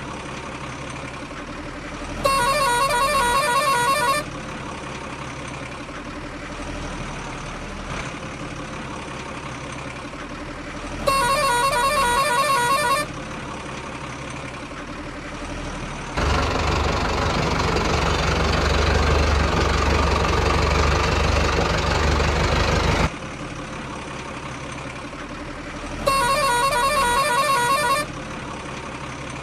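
A dubbed truck sound effect: an engine idling steadily, with a horn honking three times for about two seconds each. In the middle, the engine noise swells louder and rougher for about seven seconds.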